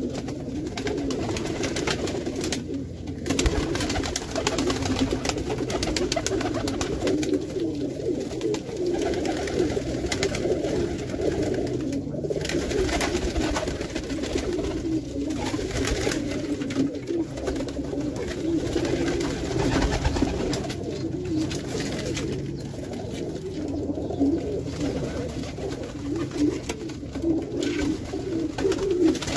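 A flock of Pakistani and Indian high flyer pigeons cooing together: a steady, overlapping chorus of low coos with no pause.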